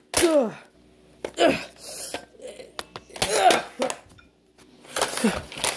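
A person's voice making short wordless vocal sounds, about four of them, each sliding down in pitch.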